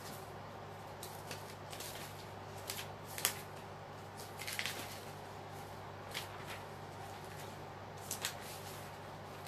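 Paper rustling as notebook pages and collage pieces are handled: scattered short crisp rustles, the loudest about three seconds in, over a steady low background hum.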